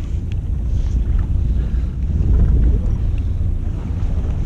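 Wind buffeting the microphone aboard a fishing boat at sea: a steady low rumble with a faint hiss of wind and water.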